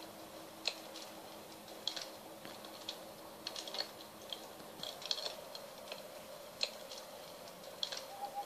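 Campfire crackling faintly, with irregular small pops and snaps. The low hum of a singing bowl fades out over the first few seconds.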